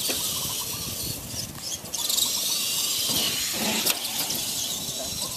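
Electric motors and gears of radio-controlled Clod Buster monster trucks running over grass, a high-pitched whine that wavers in pitch with the throttle. A sharp knock comes a little under four seconds in.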